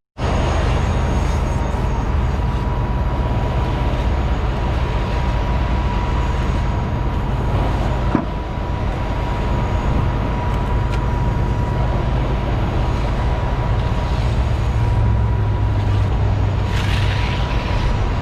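A heavy-equipment diesel engine running steadily, with a faint constant whine above its low rumble. The rumble swells for a few seconds near the end.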